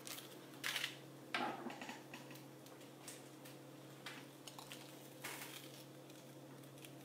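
Jewellery being handled: bead bracelets and rings clicking and scraping in a series of short, uneven clacks and rustles, the loudest two in the first second and a half, over a steady low electrical hum.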